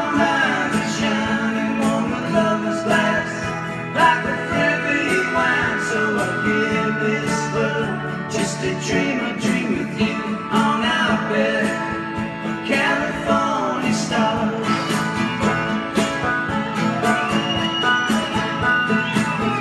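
A live acoustic band playing an instrumental break: strummed acoustic guitars, banjo, drums and a lap steel guitar, which plays several gliding notes.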